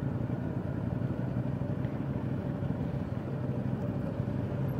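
2015 Triumph America cruiser's 865 cc parallel-twin engine running steadily at low revs with an even, low throb.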